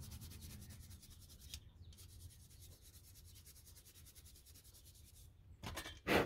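Hand rubbing to shine up an old brass tyre pressure gauge: fast, even rubbing strokes, with a short break about one and a half seconds in and two louder scrapes near the end.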